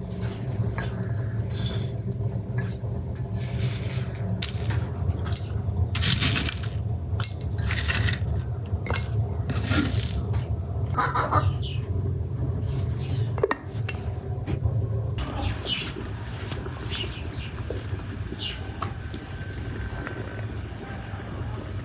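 Scattered clinks, knocks and scrapes of dishes and utensils over a steady low hum.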